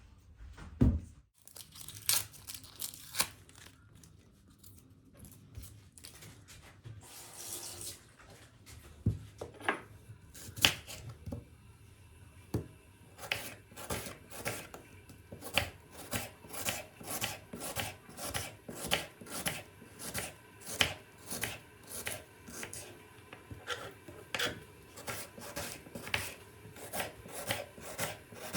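A kitchen knife chopping on a cutting board. There are a few scattered knocks at first, then steady rhythmic strokes, about two a second, from about halfway in.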